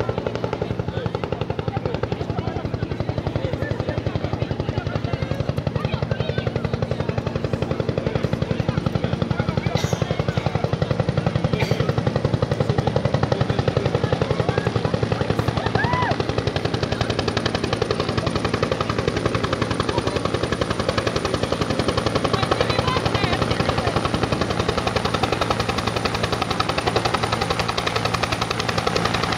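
Helicopter flying in overhead, its rotor beating with a steady fast chop that grows a little louder as it comes closer.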